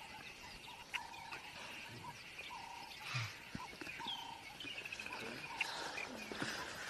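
Birds calling outdoors: repeated short whistled notes and fast trills of chirps, with a soft low thump about three seconds in.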